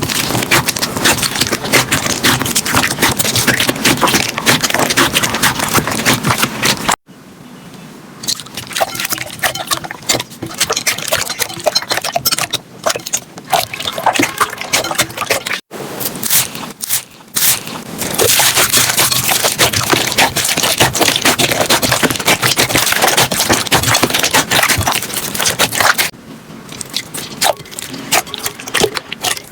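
Slime being squished and pressed, giving dense, sticky crackling and popping. The sound cuts abruptly to a new clip about 7, 16 and 26 seconds in.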